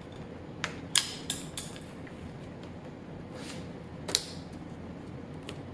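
A few scattered knocks and clicks, the loudest about four seconds in, as the fuel tank and its plastic cover are handled and set back onto a Yamaha WR250R motorcycle's frame.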